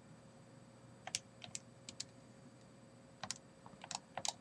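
Calculator keys being pressed: a few separate clicks, then a quicker run of clicks about three seconds in as the sum is keyed in.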